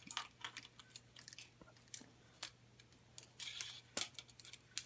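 Irregular light clicks and scrapes of the thin metal thermocouple and pilot tubes being handled and fed through a hole in a water heater's burner door, over a faint steady low hum.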